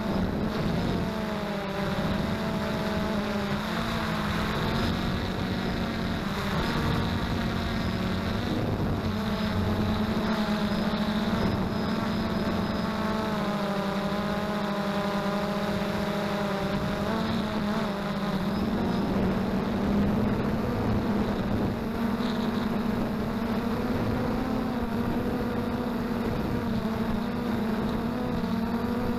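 XK Detect X380 quadcopter's motors and propellers buzzing steadily in flight, the pitch wavering up and down as the motors speed up and slow.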